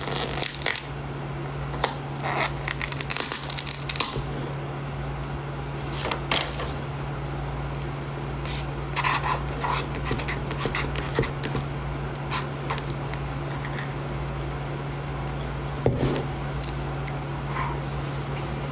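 Scattered light clicks and scrapes of a plastic Starbucks cup, its domed lid and straw being handled, over a steady low hum.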